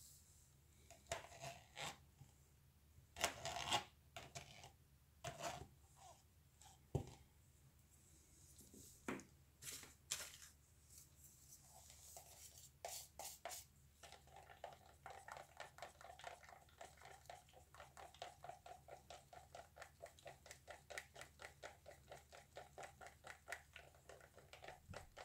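Faint handling of plastic cups of acrylic paint: scattered taps and clicks, then from about halfway a fast, even scraping, about four to five strokes a second, of a stick stirring paint in a plastic cup.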